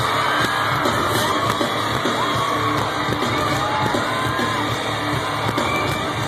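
Loud live pop music over a concert PA, heard from within the audience, with fans' high-pitched screams and whoops rising and falling over it again and again.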